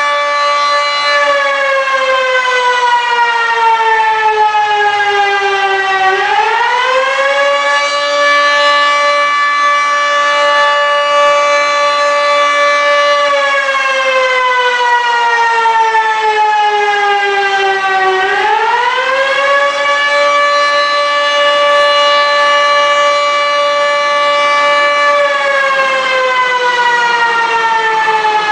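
A fire siren wailing. Its pitch holds for several seconds, slides slowly down over about five seconds, then quickly winds back up, repeating about every twelve seconds.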